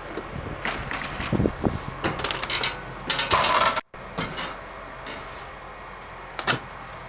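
Irregular knocks, scuffs and rustling from a handheld camera being carried. The sound cuts out completely for a moment about four seconds in.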